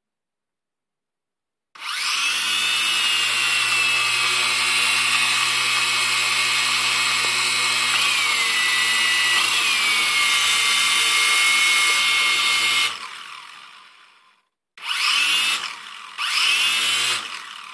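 Small brushed motors of a JJRC H8C quadcopter whining as they spin up about two seconds in, running steadily with two brief pitch wobbles, then winding down near the end, followed by two short throttle blips. The owner calls one of the motors bad.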